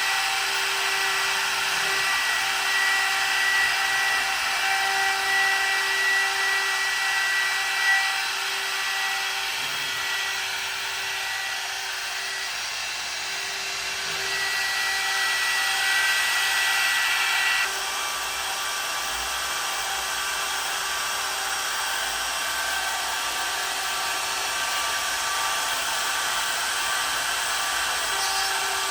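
CNC router spindle running with a steady high-pitched whine over mechanical noise. The noise swells and eases as the machine works, and drops sharply a little over halfway through.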